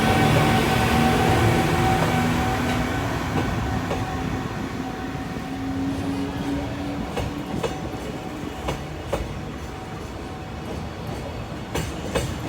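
Electric freight train passing: the locomotive's steady motor whine fades away, then the wagons' wheels click sharply over the rail joints, a few irregularly spaced clacks.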